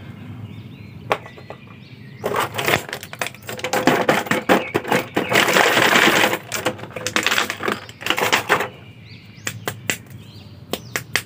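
Clear plastic blister packaging crinkling and crackling as an action figure is worked out of it: a dense run of crackles starting about two seconds in and lasting some six seconds, then a few sharp separate clicks.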